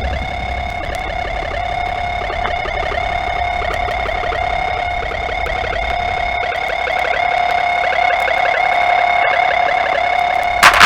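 Electronic dance music in a breakdown: the kick and bass drop out, leaving steady high-pitched synth tones over a fast, ticking rhythmic pattern. The loud full beat crashes back in near the end.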